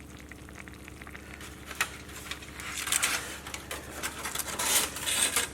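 Kitchen handling sounds: a sharp click a little under two seconds in, then irregular soft rustling and scraping strokes, busiest near the end.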